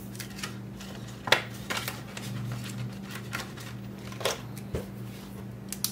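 Paper banknotes and cash envelopes being handled: a few short crinkles and sharp taps, the loudest about a second in, with more around four seconds in and near the end.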